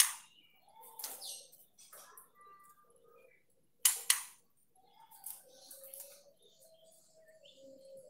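Juvenile white-rumped shama chirping in its cage, with a few short, sharp calls; the loudest come right at the start and about four seconds in. A faint steady tone runs through the second half.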